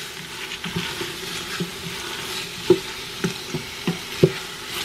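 Onion, garlic, cherry tomatoes and zucchini sizzling in the hot stainless steel inner pot of an Instant Pot on sauté, stirred with a spoon that knocks against the pot several times.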